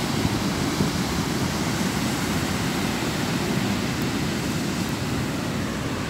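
Ocean surf breaking and washing up on a sandy beach: a steady wash of noise, with some wind on the microphone.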